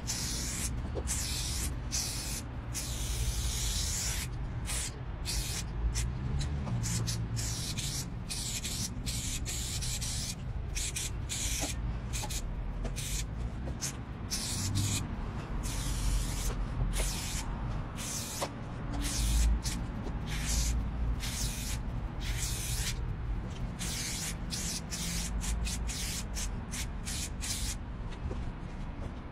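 Aerosol spray paint can hissing as paint goes onto a wall in strokes. It runs in many bursts of varying length, cut by short stops as the nozzle is released and pressed again.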